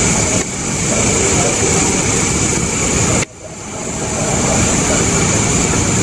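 Steady outdoor night noise: a loud low rumble under a constant high insect trill. About three seconds in there is a click, after which the sound drops sharply and builds back up over a second.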